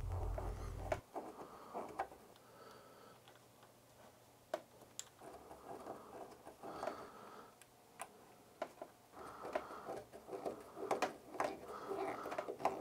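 Small screwdriver turning the screws of a plastic screw-terminal block on a circuit board, clamping wires: faint scattered clicks and scraping. A low hum cuts off about a second in.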